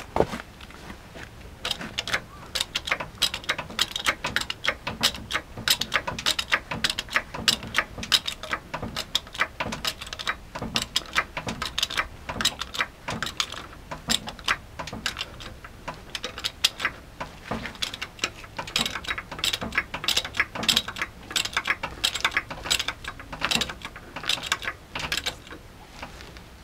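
Emerson hydraulic jack being pumped by its handle while it lifts a van: a long run of metallic clicks and clacks with the handle strokes. It starts about two seconds in and stops shortly before the end.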